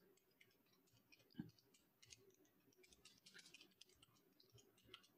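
Faint, scattered computer keyboard clicks from typing, with one slightly louder low knock about a second and a half in; otherwise near silence.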